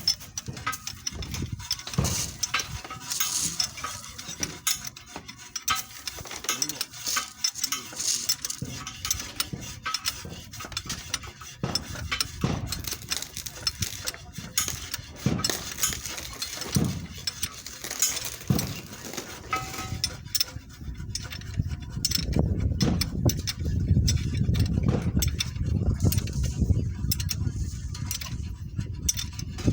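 Metal tools and engine parts clinking and clattering during engine repair work. About two-thirds of the way in, a low steady engine rumble starts and keeps running.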